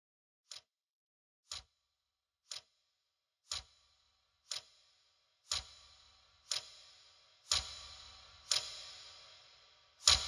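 Clock-like ticking, one sharp tick a second, growing steadily louder. From about halfway, each tick leaves a ringing tail with a low hum underneath, building toward music.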